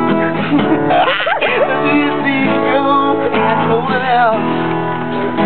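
Acoustic guitar strumming, with a man singing along.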